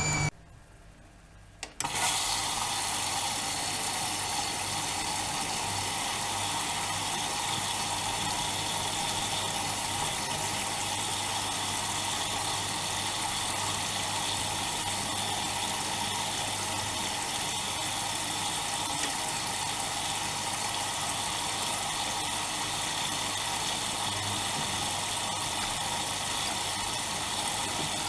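Bauknecht WAK 5750 G front-loading washing machine with a steady rush of water through it and a low hum, starting about two seconds in after a short near-silent pause.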